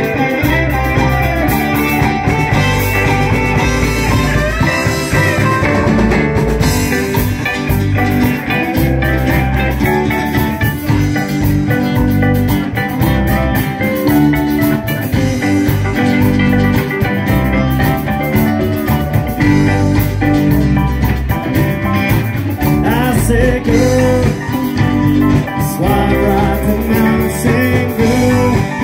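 Live rock band playing a song: electric guitars, bass, acoustic guitar and keyboard over a steady drum beat.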